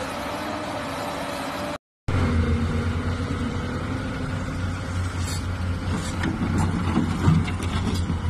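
Excavator diesel engines running. About two seconds in the sound cuts out briefly, then a second excavator's engine hums deeply while it loads soil into a dump truck, with several clatters and knocks of dirt and stones, the loudest a little after seven seconds.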